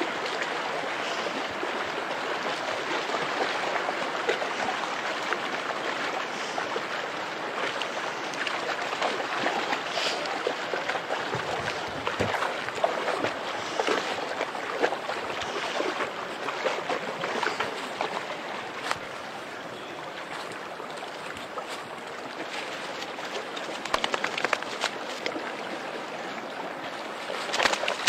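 Shallow rocky river rushing steadily, with intermittent splashes from a dog wading through the water, more frequent and louder near the end.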